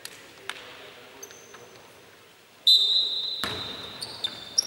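Basketball play on a hardwood court. A couple of sharp ball bounces come near the start. About two-thirds of the way in there is a loud, high-pitched squeal lasting over a second, with a thud under it, then shorter squeaks.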